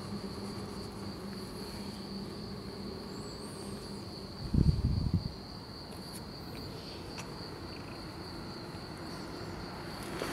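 An insect chirring steadily at a single high pitch, with a brief low rumble of handling noise on the camera's microphone about halfway through.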